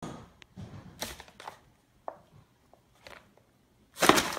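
A few light taps and scuffles, then about four seconds in a loud crinkling rustle as a cat tangles with a paper bag.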